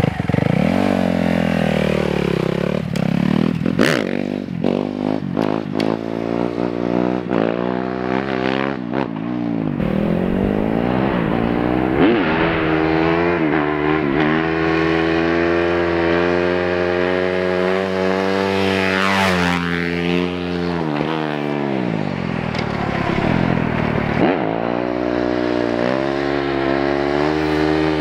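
2017 Kawasaki KX250F's single-cylinder four-stroke engine revving hard as the dirt bike pulls away, its pitch climbing and dropping several times as it goes up through the gears. It then holds a long rising pull, falls in pitch as the bike slows about two-thirds of the way in, and revs up again near the end.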